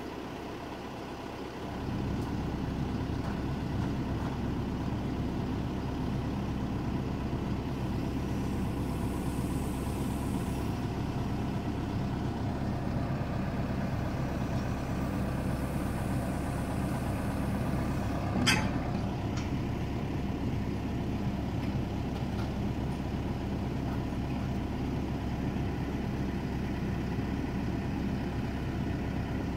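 JLG telehandler's diesel engine running steadily at idle, growing louder about two seconds in. A single sharp clank rings out a little past the middle.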